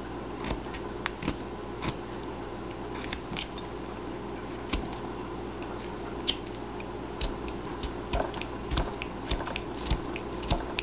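Carving knife whittling small chips from a wooden block held in the hand: irregular short crisp clicks and scrapes, coming more often in the last few seconds.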